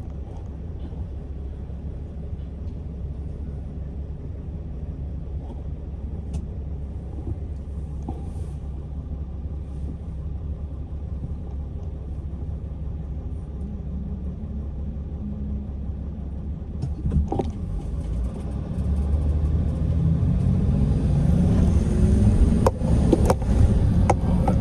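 Car driving on a city street: a steady low engine and road rumble that grows louder about two-thirds of the way through as the engine pitch rises, with a few sharp knocks near the end.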